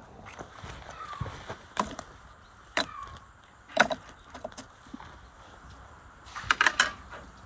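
Charcoal briquettes knocking and clattering as they are set into a small metal bucket stove: single sharp knocks about a second apart, then a quick run of several knocks near the end as a metal rod is worked among the coals.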